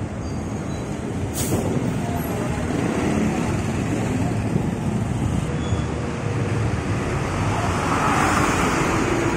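Hino GrandEcho 2 bus driving past and pulling away with its engine running, over steady street traffic, with a brief sharp sound about a second and a half in. Near the end a light truck passes very close and the traffic sound gets louder.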